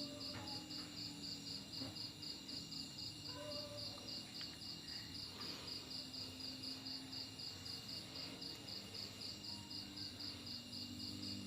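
Insects chirping steadily in a fast, even pulse, like crickets, with a faint low hum beneath.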